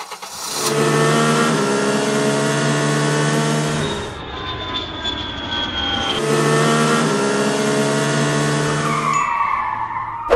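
Car engine sound effect: a steady engine note running for about three seconds, changing briefly with a slowly falling tone, then running steadily again for about three seconds, with a sweeping whoosh near the end.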